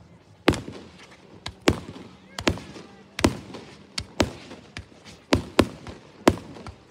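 Aerial firework shells bursting in a quick irregular series of sharp bangs, about two a second.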